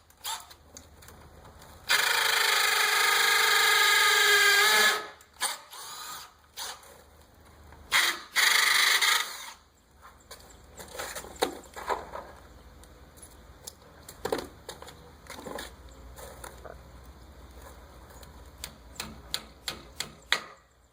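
Power drill with a 3/8-inch bit drilling into concrete block: one run of about three seconds, then a second, shorter run of about a second and a half. Scattered clicks and knocks follow.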